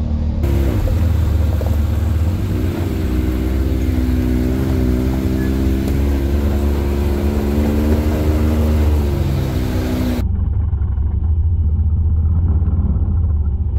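Side-by-side UTV engines running while driving on a gravel trail, with a steady low rumble. The engine pitch climbs about two and a half seconds in, holds, then drops near the end, after which the sound turns duller.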